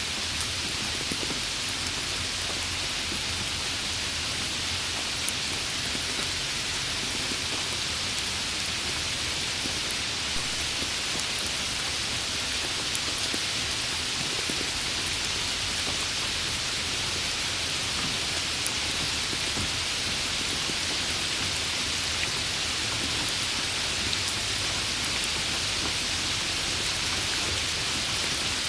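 Steady rain falling: an even hiss of drops, with a few sharper drop ticks now and then.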